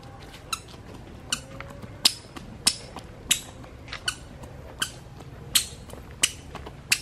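A toddler's squeaky shoes squeaking with each step: about ten short, high squeaks, evenly spaced at walking pace.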